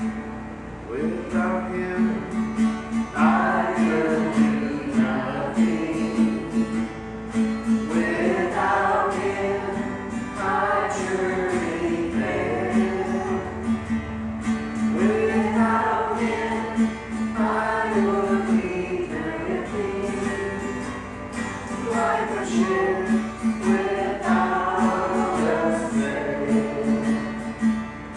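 Worship song sung with acoustic guitar accompaniment, in phrases of a few seconds over a steady held low note.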